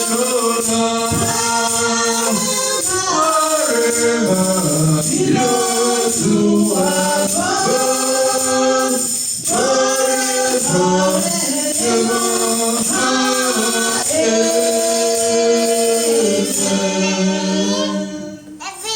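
A congregation choir singing a gospel song with tambourine keeping the beat; the song fades out near the end.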